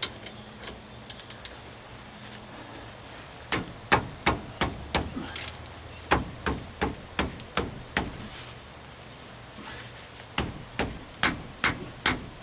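Hand tool working loose the lower bolt of a 2002 Nissan Frontier's front brake caliper. Two runs of sharp metallic knocks, about three a second: one starts about three and a half seconds in, the other near the end.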